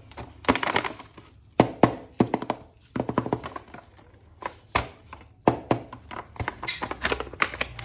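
Hands handling an action figure and its packaging during an unboxing: irregular sharp clicks, taps and knocks in quick clusters.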